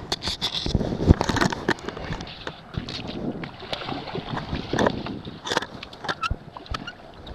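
Water sloshing and splashing close to the microphone, broken by many short irregular knocks and clicks.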